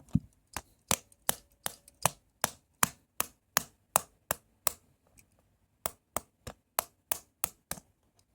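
A spanner repeatedly tapping a remote control: sharp, even knocks about three a second, pausing for about a second midway, then carrying on at the same pace.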